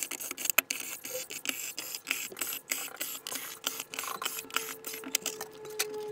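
Screwdriver backing the screws out of a TV's plastic back cover: a fast run of ratcheting clicks and knocks. A steady tone joins in past the middle.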